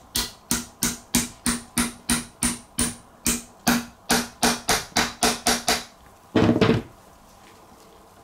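Brass hammer tapping a steel hinge pin into a Jaguar XJS handbrake mechanism: quick light strikes about four a second, each with a short metallic ring, pausing briefly a little after three seconds. The taps stop a little before six seconds in, followed by a brief handling noise.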